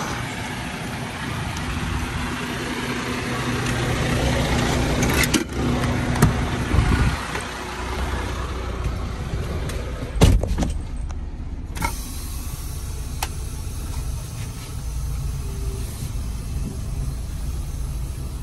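Semi truck's diesel engine idling steadily, with a few knocks and a loud thump about ten seconds in as the cab door shuts; after that the idle is heard muffled from inside the cab.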